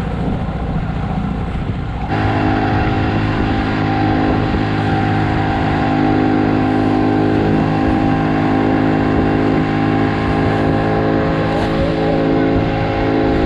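Boat's outboard engine running at a steady speed; about two seconds in it turns abruptly louder and holds an even pitch.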